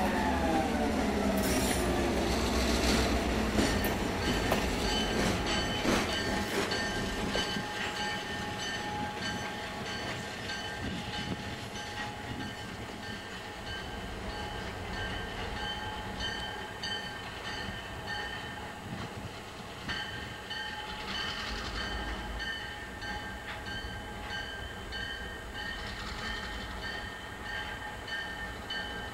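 A long freight train rolling past, its cars rumbling along the rails with steady high-pitched squealing; the sound slowly fades.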